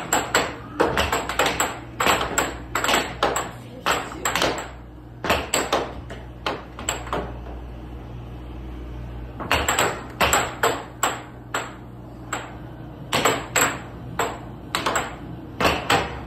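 Air hockey in play: the plastic puck clacks off the mallets and the table's rails in quick volleys over the air table's steady low blower hum. The hits thin out for a few seconds near the middle, then a fast rally starts again.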